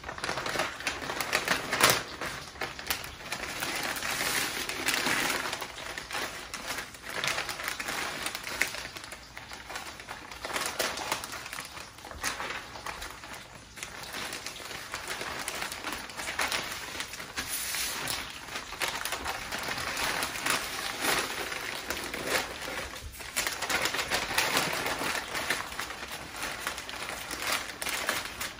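Stiff butcher paper crinkling and rustling as it is folded and tucked tightly around a smoked brisket, in an irregular run of crackles and clicks.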